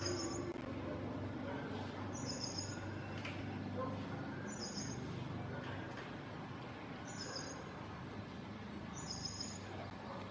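A bird giving the same short, high chirp five times, about every two seconds, over a steady low background hum.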